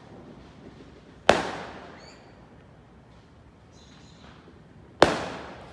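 Two loud fireworks bangs about four seconds apart, each echoing and dying away over about half a second.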